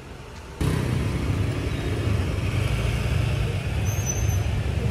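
Street ambience of passing motor traffic: a steady rumble that starts abruptly about half a second in, where the picture cuts to the street.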